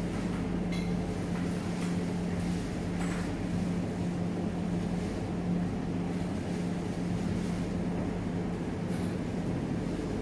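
Steady low machine hum with a constant hiss from equipment running in the room, broken by a few faint clicks.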